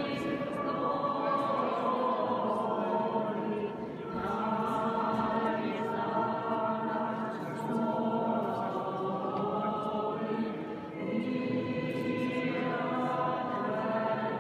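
A choir singing a church hymn in long sustained phrases, with brief breaks about 4 and 11 seconds in.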